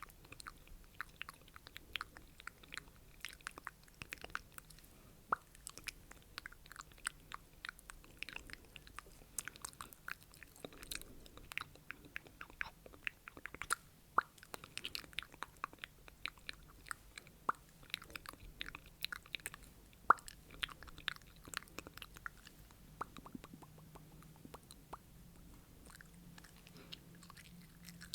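Close-miked ASMR mouth sounds: many quick, irregular wet clicks and smacks of the lips and tongue.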